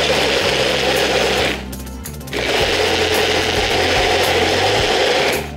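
Personal bullet-style blender running on high, churning banana peels and water into a liquid. It runs in two bursts with a short pause about a second and a half in, and stops just before the end.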